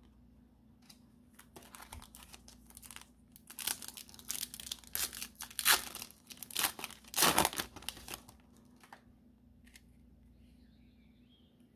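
Foil wrapper of a Japanese Pokémon 151 booster pack being torn open and crinkled by hand, a quick run of crackles and rips that is loudest in the middle and stops about three-quarters of the way through.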